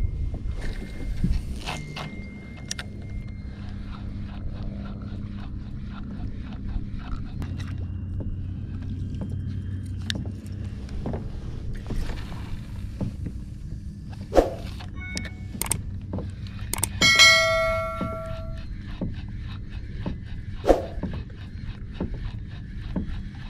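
Spinning reel being cranked on a lure retrieve, ticking evenly a few times a second, over a low rumble of wind and water. A few sharp knocks, and about two-thirds of the way in a short ringing tone with several overtones.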